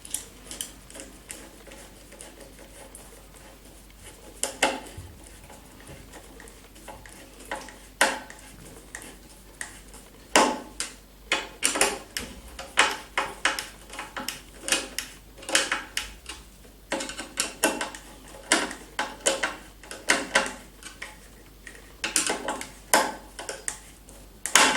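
Screws of a bidet mounting board being driven and tightened with a screwdriver: a run of irregular sharp clicks and small knocks, sparse at first and coming thick and fast from about halfway through.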